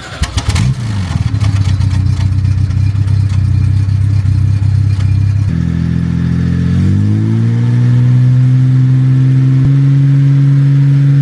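Car engine catching with a brief clatter, then running at a steady idle. About five and a half seconds in the note changes and rises over a second or so to a faster steady speed.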